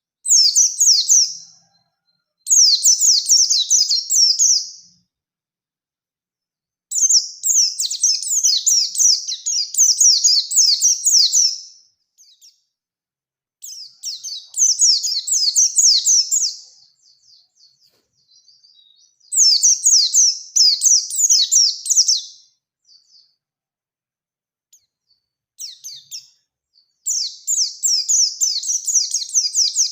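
Pleci (white-eye) singing in bouts of rapid, high twittering rolls, each a few seconds long with short silent pauses between, about six or seven bouts. This is the fast rolling 'ngalas ngerol nembak' song of a bird challenging a rival.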